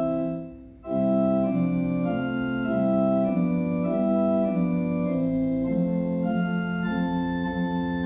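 Organ playing slow, sustained chords. The sound dips away briefly just under a second in, then a new chord comes in and the chords move on steadily.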